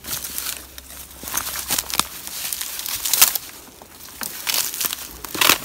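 Footsteps crunching and rustling through dry leaf litter and twigs, irregular steps with sharp crackles.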